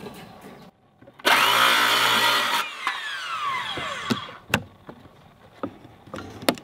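Makita circular saw running and cutting into deck boards for about a second and a half, then the blade winding down with a falling whine. A couple of sharp knocks follow.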